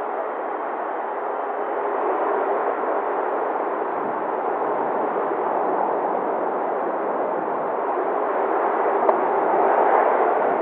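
Steady radio hiss from an air traffic control frequency between transmissions, an even static noise heard through a narrow-band receiver.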